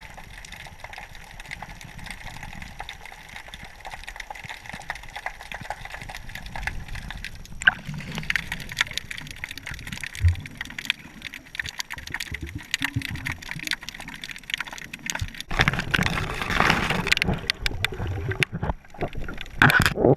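Water sloshing and gurgling with many small knocks, getting louder about halfway through and again near the end.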